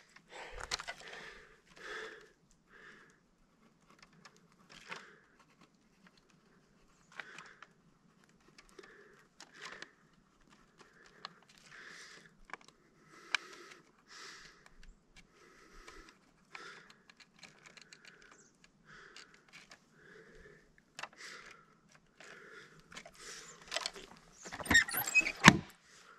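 Light scattered clicks and soft rustling of hands and gear handling a wooden trail sign, with a louder cluster of sharp clicks and knocks near the end.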